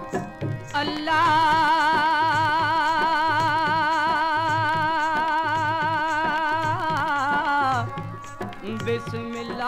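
Punjabi folk music playing from a 1974 vinyl record. A long held note with a fast, even vibrato lasts about seven seconds over a steady low drum beat. A second held note starts near the end.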